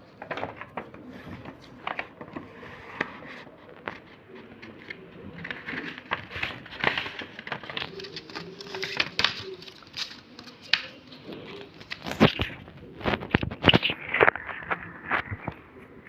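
Sheets of paper being handled, folded and creased by hand: irregular rustling and crinkling with sharp clicks and taps, busiest about twelve to fourteen seconds in.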